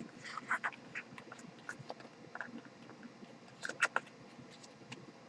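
Handling of box-set packaging: scattered light clicks and crinkles, with a louder pair of clicks about four seconds in.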